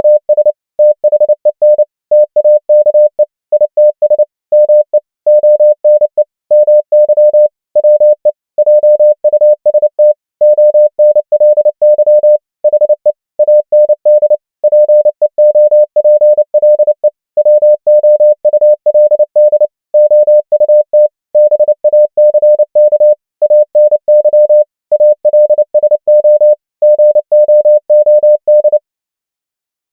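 Morse code: a single steady-pitched beep keyed on and off in dots and dashes at 29 words per minute, spelling common English words with short gaps between them. The tone stops about a second before the end.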